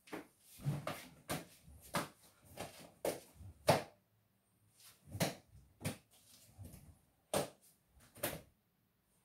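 Nunchaku swung through a kata: a quick series of short, sharp swishes and knocks as the sticks are whipped round and caught, about a dozen in all, the loudest just before four seconds in.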